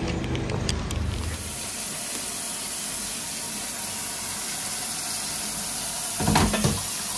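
Kitchen tap running steadily into a stainless-steel sink and colander, a constant hiss of water. About six seconds in there is a louder splashing clatter as raw chicken pieces are tipped from a plastic tray under the stream.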